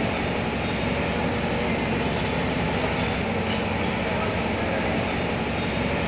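Electric ceiling fans running with a steady hum and rush of air.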